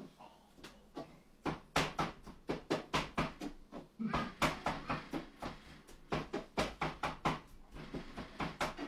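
A cooking utensil repeatedly knocking against a pan on the stove, a quick irregular run of sharp knocks, a few a second, starting about a second and a half in.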